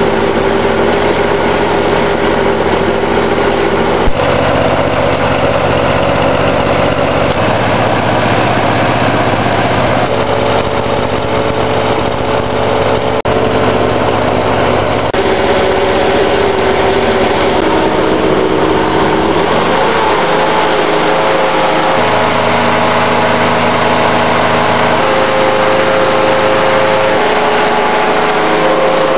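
Briggs & Stratton 6 hp single-cylinder lawn mower engine running smoothly, its pitch shifting a few times and wavering briefly about twenty seconds in. A sharp click sounds about four seconds in.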